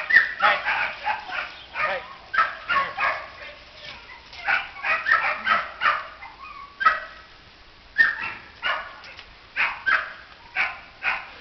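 Young border collie pup barking in quick, high yips, in runs of several barks with short pauses between them.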